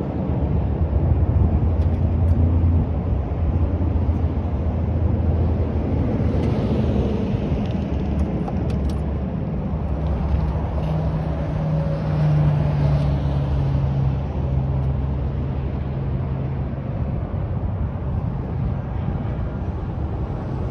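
Steady low rumble of wind buffeting the microphone mixed with vehicle noise, with a low drone standing out for a few seconds around the middle.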